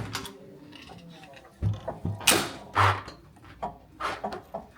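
Hotel room door being unlocked and opened: a series of clicks and knocks from the lock and latch, with two louder rustling sweeps about two and three seconds in.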